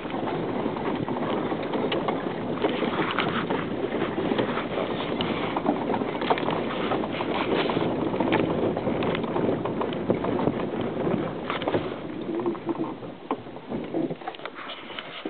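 Vehicle running over a rough dirt road, heard from inside the cabin: a dense rumble of engine and tyres on gravel with frequent knocks and rattles from the body. It eases off somewhat over the last few seconds.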